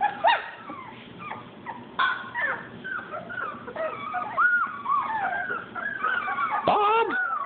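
Young puppies whimpering and whining in many short, high squeaks that rise and fall, with a louder yelp near the end.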